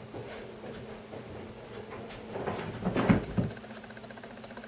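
Tabby cat jumping and scrambling on sofa cushions: soft pattering of paws and a few thumps, the loudest about three seconds in.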